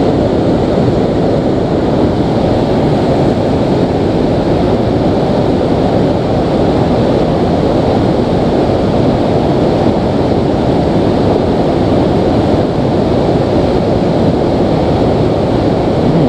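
Steady, loud rush of a shallow, rocky river running over rapids close by.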